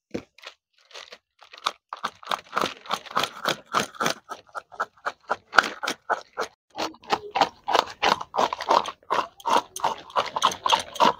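Scales being scraped off a whole catla fish with a small hand-held metal tool: rapid, crunchy scraping strokes, about three or four a second, that start sparsely and settle into a steady rhythm after a second or two.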